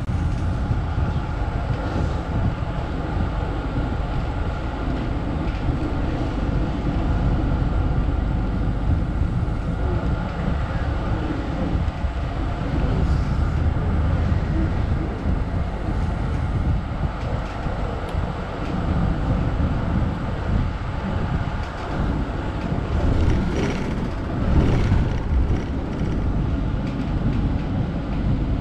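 Melbourne Z-class tram running, heard on board: a steady rumble of wheels on rails and running gear, with a brief louder stretch of clatter about 24 seconds in.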